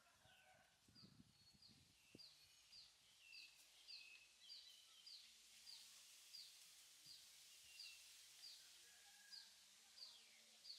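A bird giving short, high, downward-sliding chirps, repeated evenly about one and a half times a second. A few soft low thumps come between one and two seconds in.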